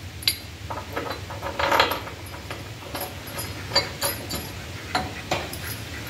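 Scattered light metallic clinks and knocks at irregular times. Steel bolts with lock washers and a steel tie-down bracket are being handled and set against a tractor's rear frame.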